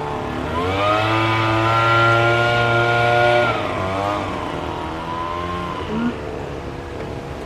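A motor vehicle's engine revving up, holding a steady pitch for a few seconds, then dropping in pitch and fading.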